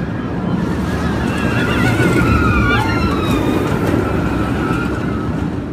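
Steel roller coaster train rushing past on its track with a loud rumble that builds to a peak around two seconds in and eases off near the end. Riders scream over it.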